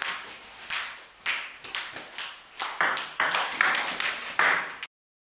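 Table tennis rally: the ball clicking off the bats and bouncing on the table, about two hits a second, each click ringing on briefly in the room. The sound cuts off suddenly near the end.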